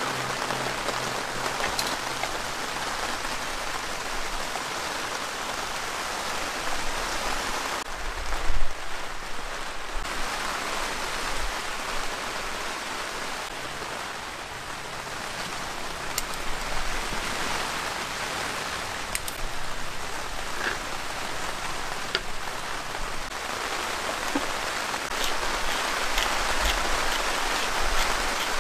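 Heavy rain falling steadily on a tent, with a dull thump about eight and a half seconds in and a few faint clicks.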